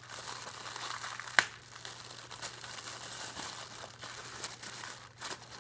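Plastic packaging crinkling and rustling as a small parcel is unwrapped by hand, with one sharp click about a second and a half in.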